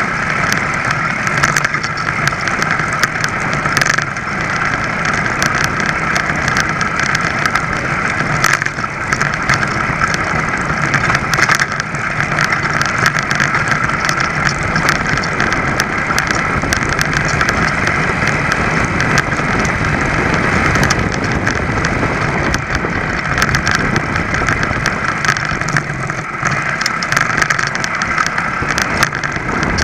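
ABG VAP moped's small two-stroke engine running steadily under way, heard up close, with scattered light clicks and rattles.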